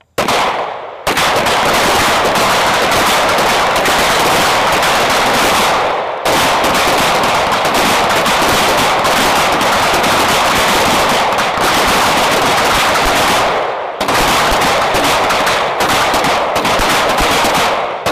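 Many pistols firing at once along a firing line, the shots overlapping into a dense, continuous crackle of gunfire. It starts abruptly about a second in and drops out for a moment twice, about six seconds in and again near fourteen seconds.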